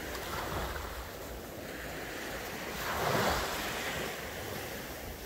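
Sea waves breaking and washing up the beach at the water's edge, one wave's wash swelling louder about three seconds in.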